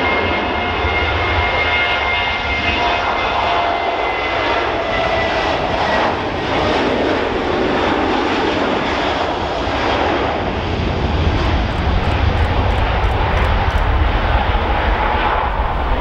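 Boeing 737's twin jet engines at takeoff thrust during the takeoff roll and lift-off: a steady loud roar. Whining tones fade out about six seconds in, and the roar grows louder in the second half as the jet passes and climbs away.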